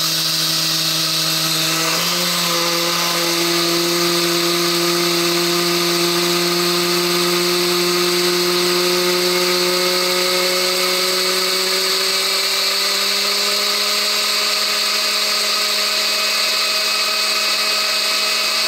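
Countertop blender with a glass jar running continuously, smashing a load of large crystals into fine powder. The motor's pitch steps up about two seconds in, then creeps slowly higher, over a hissy grinding noise.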